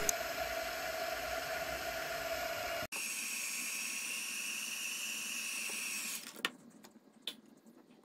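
Mini hot air gun blowing steadily, a fan whine over rushing air, as it heats the tablet's screen edge to soften the adhesive. The whine jumps abruptly higher about three seconds in. The gun cuts out a little after six seconds, followed by a couple of light taps.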